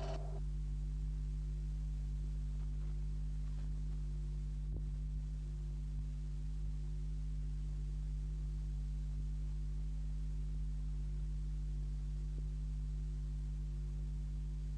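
Steady low electrical hum with several higher overtones, unchanging in pitch and level.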